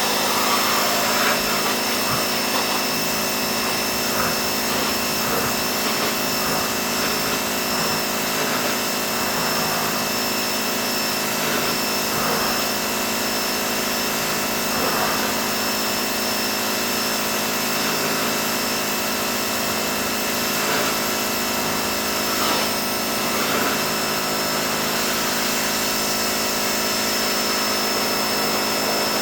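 Pressure washer running steadily, a constant machine drone with a couple of high steady whine tones over an even hiss of spray.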